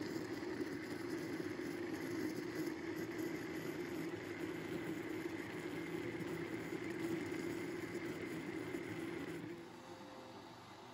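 Countertop blender motor running steadily as it blends a fruit smoothie, with a faint high whine over the motor. It cuts off about nine and a half seconds in.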